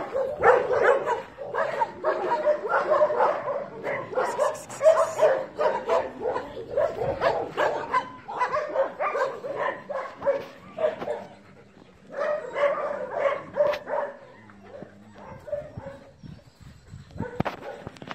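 Several dogs barking and yipping over one another in quick, repeated barks. The barking thins out about fourteen seconds in, with one last short flurry near the end.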